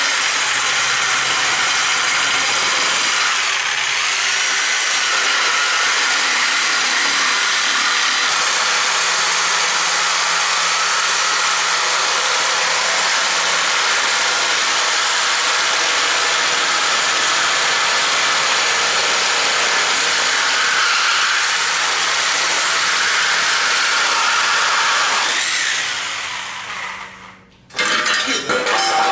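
Corded reciprocating saw cutting through the rusted steel frame rail of a Model T chassis, a loud steady cutting sound that winds down and stops as the cut finishes, about 27 seconds in. A short, loud burst of noise follows near the end.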